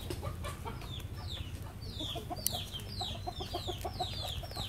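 Chickens peeping and clucking: many quick, high, falling peeps throughout, joined by a fast run of low clucks from about halfway. A single sharp click sounds just past the middle.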